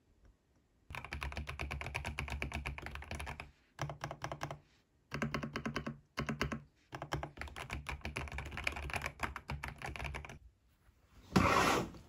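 Fast typing on a mechanical keyboard: dense runs of key clicks in several bursts, with short pauses between them. Near the end comes one brief, loud rush of noise.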